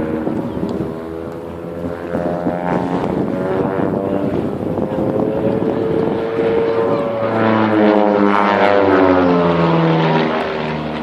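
Propeller aircraft flying past, its engine and propeller drone building to its loudest about eight seconds in, then dropping in pitch as it passes by.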